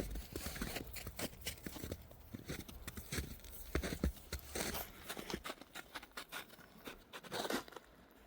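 Footsteps crunching and rustling at an uneven pace, busier at first, thinning out over the last few seconds with one last scuff near the end.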